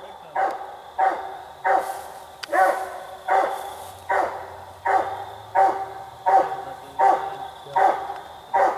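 Walker coonhound barking at the tree in a steady rhythm, about one bark every three-quarters of a second: tree barking, the sign that the hound has a raccoon treed.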